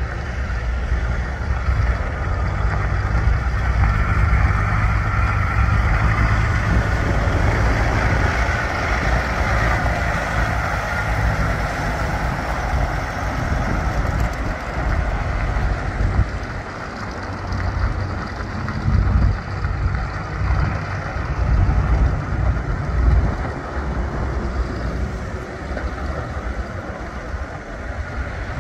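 2007 Kenworth T800 sleeper tractor driving at low speed, its diesel engine running steadily with a low rumble, a little louder in the first half.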